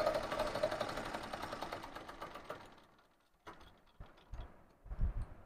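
Zig-zag sewing machine stitching, slowing and stopping about three seconds in, followed by a few faint knocks.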